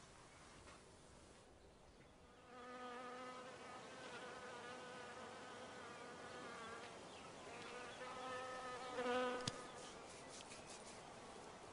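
A flying insect buzzing with a steady pitch for a few seconds. It fades, then buzzes again louder about eight seconds in, followed by a single sharp click.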